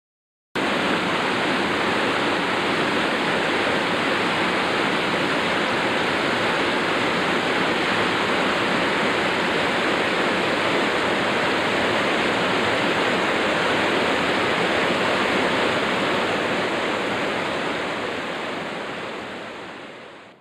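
Steady rushing noise, even and without any tone or rhythm, starting suddenly about half a second in and fading out over the last three seconds.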